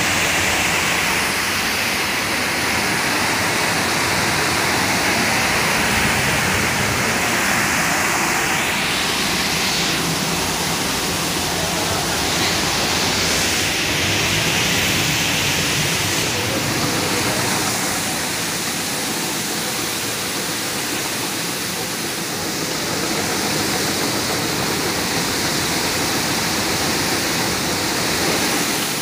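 Steady machinery noise with a strong, even hiss, from a running optical colour sorter and the processing-plant machinery around it.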